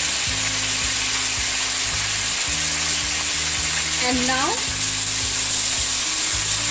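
Jackfruit and potato pieces sizzling in hot mustard oil in a wok, with a spatula stirring them from about four seconds in.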